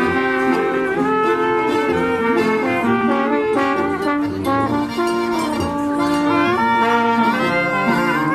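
Bavarian brass band (Blasmusik) playing a tune, several horns sounding together in held chords that change in step.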